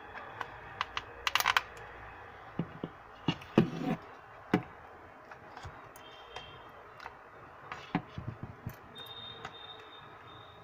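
Irregular plastic clicks and knocks of handling as a smartphone is pushed into a mini tripod's clamp-style phone holder, with a small cluster of quick clicks about a second and a half in.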